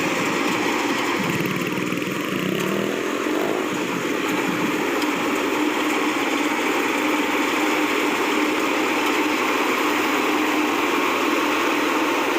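Rice combine harvester running steadily while cutting paddy: a constant engine hum over an even wash of machinery noise.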